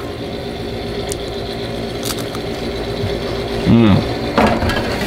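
Steady motor hum from the Blackstone griddle's air fryer unit, with metal tongs clicking against the wire fry basket near the end.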